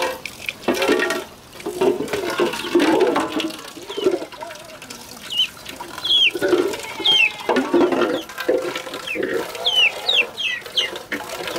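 Chickens clucking, with short high chirps repeating in the second half, over the splash and scrape of a metal cooking pot being scrubbed with water.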